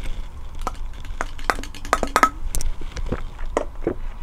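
Eating utensils clicking and clinking against a dish while eating noodles, about a dozen short knocks, a few with a brief ring.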